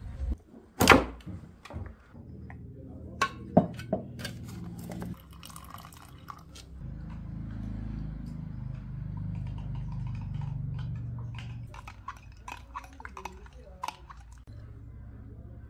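Knocks and clinks of a drink container being handled and opened, the loudest knock about a second in, followed by a longer stretch of liquid being poured.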